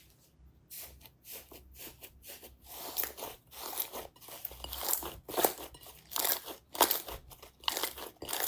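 Slime being pressed and squeezed, giving an irregular run of crisp crunching crackles that starts after about a second of near quiet and grows louder.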